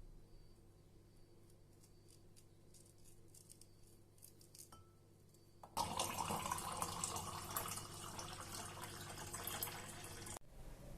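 Water running, starting about halfway through and cutting off abruptly near the end, after a few faint light clicks.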